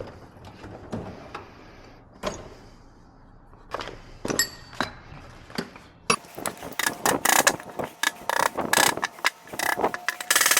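Irregular metallic clinks, knocks and scraping of tools working the old rubber bushing out of a BMW M2 front lower control arm, some strikes ringing. Sparse at first, then busier and louder in the second half.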